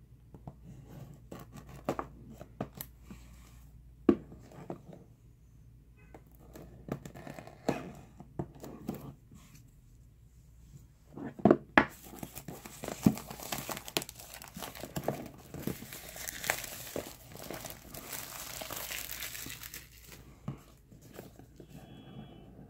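Clear plastic shrink wrap being torn and peeled off a phone box by hand, breaking the seal: sharp crinkles and crackles at first, then a longer stretch of continuous rustling and tearing about halfway through.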